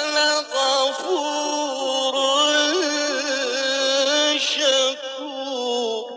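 A male Quran reciter's voice in melodic recitation: one long chanted line, its pitch turning and wavering in ornaments, with a short breath about half a second in, dying away near the end.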